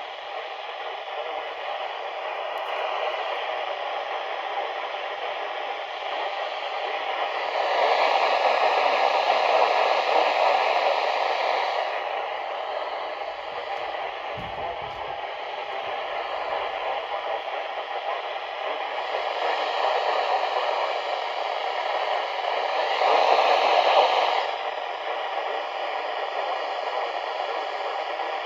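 Weather radio receiver hissing with static from a weak signal, steady with faint underlying tones, swelling louder twice: once about a third of the way in and again past two-thirds.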